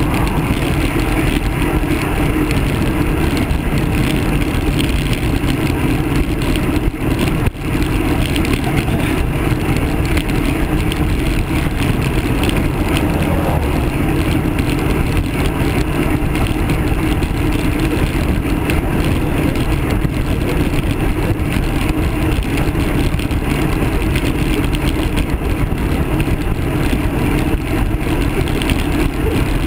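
Steady rush of wind and road noise buffeting a handlebar-mounted camera on a moving road bike, with a brief dip about seven and a half seconds in.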